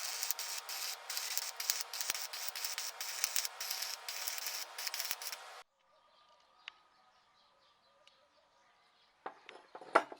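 Harsh, continuous abrasive scraping on steel that stops abruptly about five and a half seconds in. Then faint background, with a couple of soft knocks near the end.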